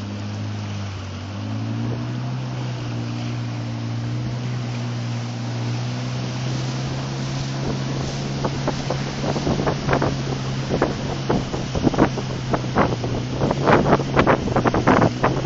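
Outboard motor of a river longboat running steadily under way, its pitch rising slightly about a second and a half in. From about halfway on, irregular sharp slaps and knocks of water against the hull as the boat runs through choppy shallows, growing louder near the end.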